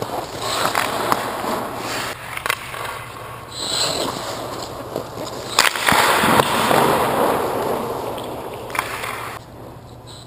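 Goaltender's skates and leg pads scraping and sliding on ice during crease drills, with several sharp knocks of pads or stick. The longest, loudest scrape comes about six seconds in as he slides across the crease on his knees, then it quiets near the end.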